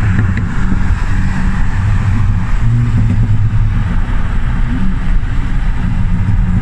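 Cars cruising side by side at a steady speed, heard from a moving car: a continuous low engine drone with steady tyre and wind noise, and no hard revving.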